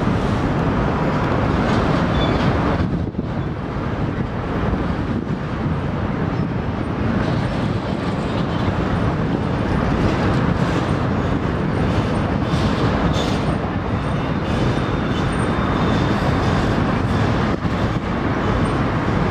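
Freight train of intermodal container cars rolling steadily across a steel railroad bridge: a continuous noise of wheels on the rails.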